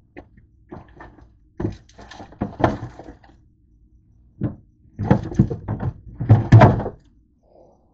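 Rummaging in a refrigerator's lower drawer: items and the plastic drawer knocking and rustling in a string of short clatters, loudest from about five to seven seconds in.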